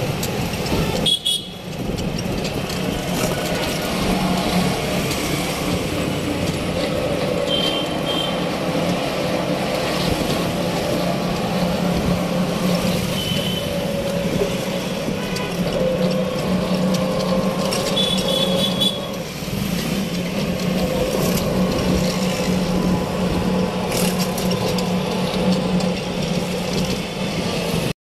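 Riding in an open-sided rickshaw through city traffic: steady road and motor noise, with short horn toots from traffic a few times.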